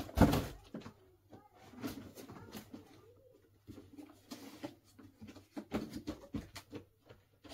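Rummaging and handling things: a knock right at the start, then scattered light clicks, taps and rustling, like plastic Lego pieces and containers being moved about.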